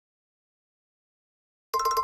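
Dead silence between ringtones, then near the end an iPhone ringtone starts with bright, chiming notes.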